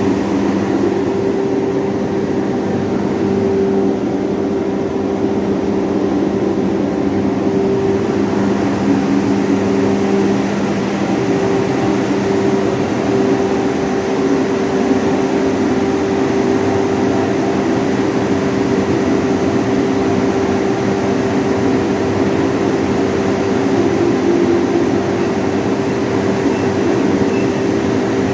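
Hammer mill plant running at full speed: the 55 kW hammer mill and its blowers make a loud, steady machine drone with a low electric-motor hum. One of the lower hums drops out about a third of the way through.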